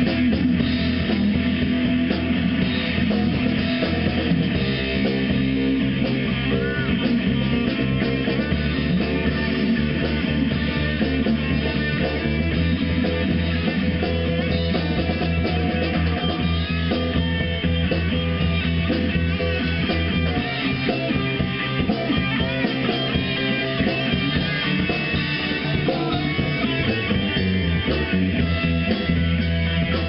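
A live rock band playing steadily: electric guitars and a drum kit.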